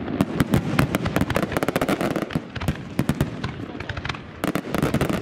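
Aerial fireworks going off: a dense stream of sharp crackling pops over low booming rumbles, thickest near the end.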